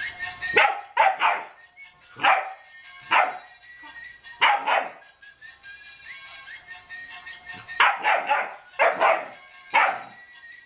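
German shepherd puppy barking, about ten sharp barks in irregular bursts with a pause of a few seconds in the middle. A singing Santa Claus toy's tune plays faintly underneath.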